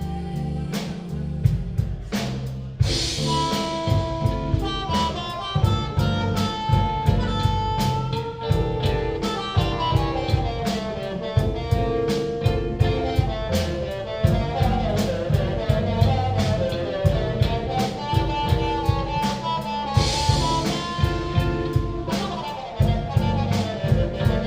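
Live rock band playing an instrumental passage: drum kit keeping a steady beat under bass and held lead-instrument notes, with cymbal crashes about three seconds in and again near the end.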